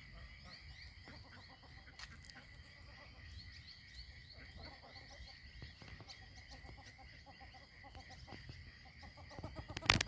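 Ducks calling softly in runs of short repeated clucking notes, with higher little chirps over them and a steady thin high tone. A sharp click near the end.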